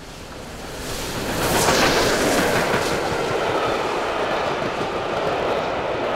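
LNER Peppercorn A1 Pacific steam locomotive 60163 Tornado running through at speed. It grows loud as it reaches the microphone about two seconds in, then its train of coaches rushes past with a steady, loud rolling noise.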